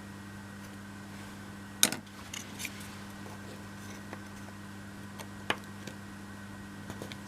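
Thin laser-cut MDF parts being handled and fitted together: one sharp knock about two seconds in, then a few light clicks and taps, over a steady electrical hum.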